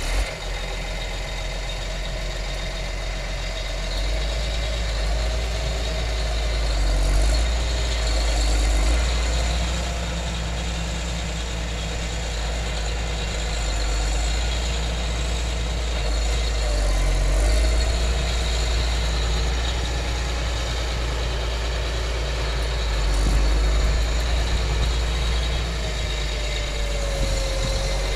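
Diesel engine of a 2007 Case IH Magnum 305 tractor idling steadily, with slow swells in loudness.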